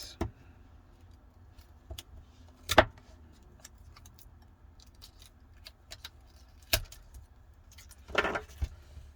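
Scattered sharp taps and clicks of a replacement phone screen being handled on the bench while its protective film covers are peeled off, the loudest about three seconds in, with a short crinkly rustle near the end. A faint low steady hum lies underneath.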